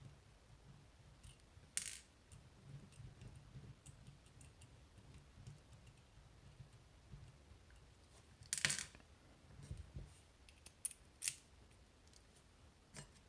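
Faint small metallic clicks and clinks of a pin-tumbler lock being taken apart by hand, with a few sharper clinks of metal parts, the loudest about two-thirds of the way in.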